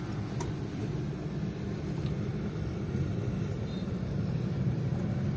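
Car engine and tyre noise heard inside the cabin while driving: a steady low rumble.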